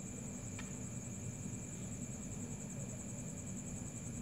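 Cricket trilling steadily, a high fast-pulsing trill, over a low steady hum; a faint click about half a second in.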